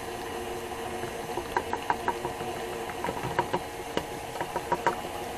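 KitchenAid stand mixer running, its beater turning through thick bread batter with a steady motor hum. Scattered light clicks and knocks come in from about a second and a half in.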